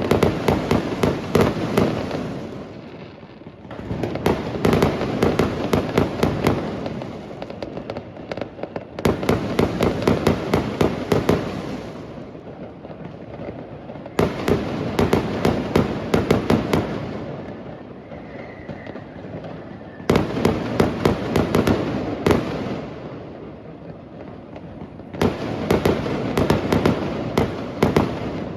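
Fireworks going off in repeated barrages of rapid sharp cracks and bangs: about six bursts, each lasting a few seconds, with short lulls between them.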